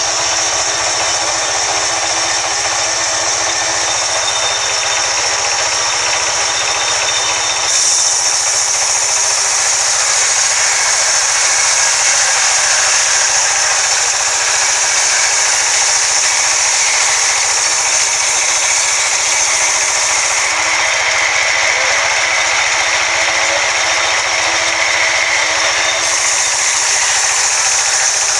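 Sawmill band saw running and its blade cutting lengthwise through a log, a loud steady whine and hiss. The hiss grows louder about eight seconds in, as the blade works into the log.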